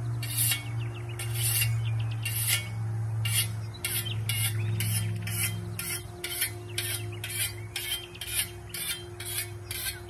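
Whetstone being stroked along a Swiss steel scythe blade to hone its edge, giving short, rasping scrapes. The strokes start a second or so apart, then from about three and a half seconds in settle into a quick, even rhythm of two to three a second.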